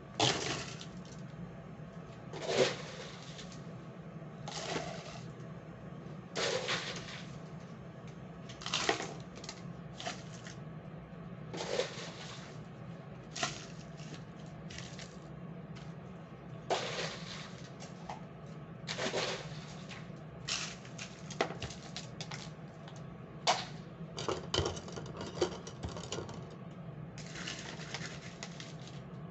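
Kitchenware clinking and knocking irregularly, every second or two, over a steady low hum.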